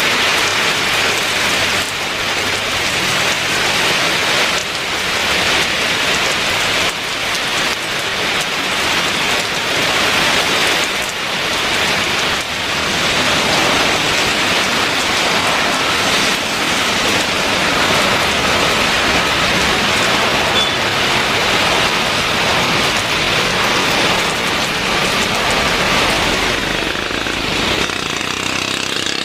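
Heavy rain, a steady loud hiss. In the last few seconds a low rumble builds underneath it, the engines of an Airbus A320 jet airliner coming in to land.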